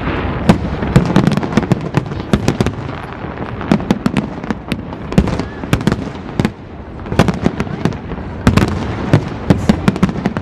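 Fireworks display: a dense, rapid barrage of aerial shell bursts and crackling, with a brief lull about six and a half seconds in.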